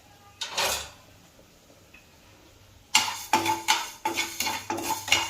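A short rushing noise about half a second in. About three seconds in, a metal spatula starts scraping and knocking around a pan, dry-roasting coriander seeds, at about three strokes a second, each stroke ringing the pan.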